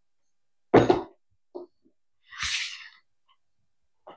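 Math manipulatives being set down on a wooden tabletop: a solid thump about a second in as a plastic storage box lands, a lighter knock, then a short papery slide as a folder is laid down, and a small tap near the end.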